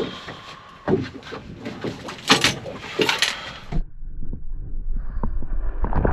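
Knocks and clatter of freediving gear (fins and mask) handled at the side of a boat. A little past halfway the sound turns muffled and low as he goes into the sea and the camera goes underwater.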